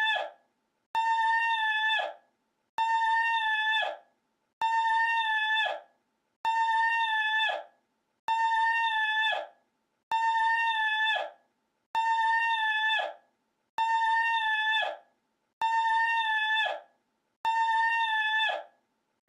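The same short, high-pitched cry repeated from a loop, about ten times: each call holds one steady, strong pitch for a little over a second, then drops away, with a gap of about half a second before the next identical call.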